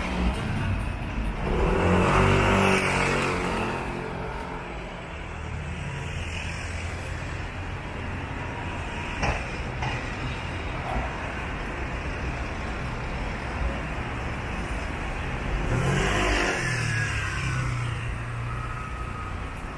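City street traffic: cars driving past on the road, with two louder pass-bys, about two seconds in and again near the end, over a steady traffic hum.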